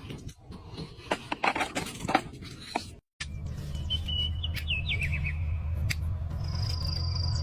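A run of sharp clicks and taps, then a short break and a steady low hum with birds chirping over it: a few quick falling twitters, then a held high whistle near the end.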